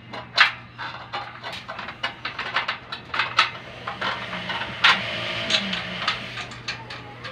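Irregular metal clicks and knocks of screws and hands working on a steel sewing-machine stand frame as it is bolted together. A steady low hum runs underneath.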